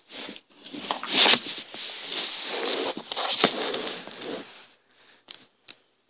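Rustling handling noise as the camera is moved and a hand passes over it, lasting about four seconds, followed by a few light clicks.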